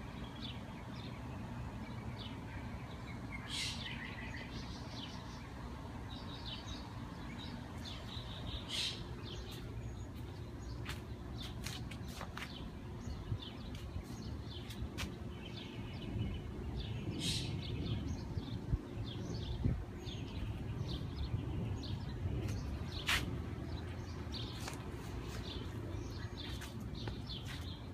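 Small birds chirping on and off, short high chirps scattered throughout, over a steady low background rumble, with a few sharp clicks.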